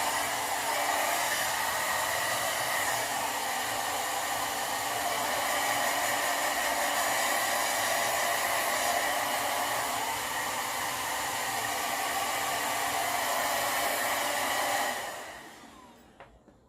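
Sharp IB-WX1 hair dryer running steadily while drying hair. About fifteen seconds in it is switched off and its sound dies away over a second or so.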